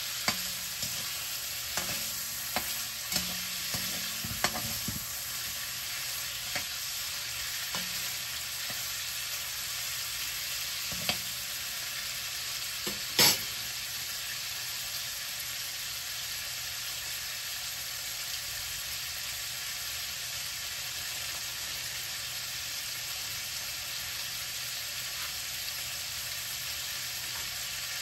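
Food sizzling steadily as it fries in oil in a pan, with a spoon stirring and clinking against the pan several times in the first five seconds and once more about eleven seconds in. One sharp knock comes about thirteen seconds in.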